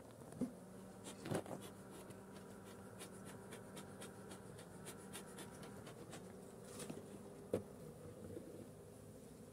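Honeybees humming steadily around an opened hive, with a few knocks and many small clicks from the wooden hive lid coming off and the frames being handled.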